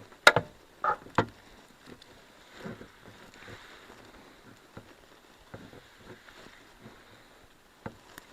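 A rag rubbing lens clarifying compound into a plastic Mk6 GTI taillight lens. Three sharp knocks come in the first second or so, then faint rubbing with scattered small taps.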